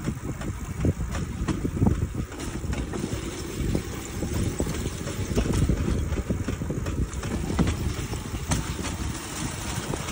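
Rail bike rolling along steel railroad track: a steady rumble from its wheels on the rails, with irregular clacks and rattles.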